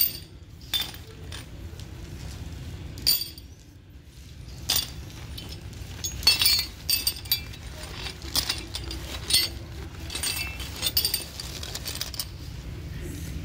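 Metal pin-type anchor bolts and their sleeves clinking against one another as they are handled: a string of sharp, short metallic clinks, sparse at first and coming thick and fast from about six seconds in. A steady low hum runs underneath.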